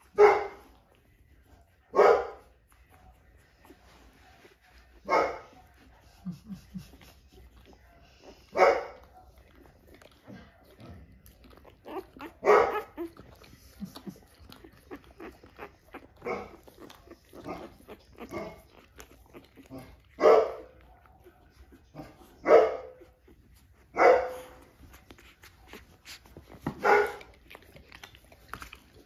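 A dog barking: single loud barks, about ten in all, coming every two to four seconds with fainter sounds between them.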